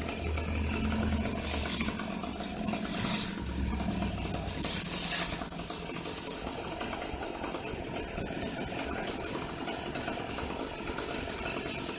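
An engine running at idle with a steady low hum, broken by two short hissing bursts, about three and five seconds in.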